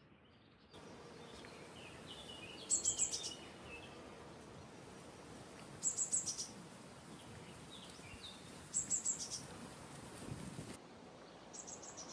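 A songbird repeating a short, high, rapid trill of four or five notes about every three seconds, with softer chirps between, over a steady outdoor hiss.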